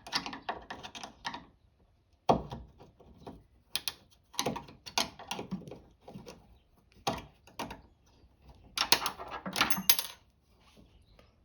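A flathead screwdriver prying at the metal retaining clip on the end of a trunk lift-support strut: a series of irregular metallic clicks, clinks and short scrapes with pauses between them.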